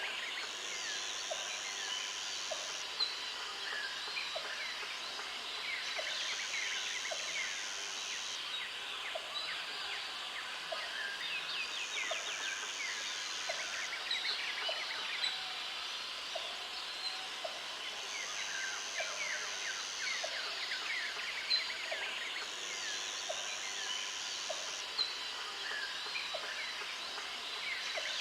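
Natural forest ambience: many birds chirping and trilling over one another. A high buzz comes and goes in stretches of about two seconds, and a short low call repeats about once a second.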